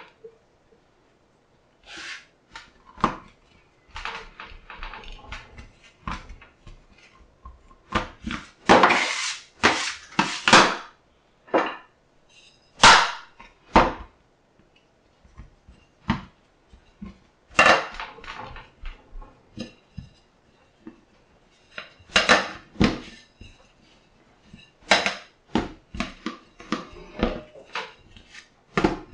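Irregular knocks, clacks and short scrapes of a wooden rolling pin and a metal bench scraper handled on a stainless steel counter, the loudest cluster about a third of the way in.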